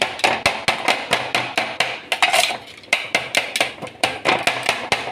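Cooked chicken being chopped finely with a metal blade: quick, even strikes, about five a second, with a short break around the middle.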